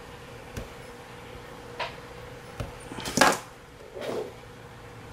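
Scattered clicks and knocks of small hand tools being handled on a workbench while wires are trimmed, the loudest a short clatter about three seconds in.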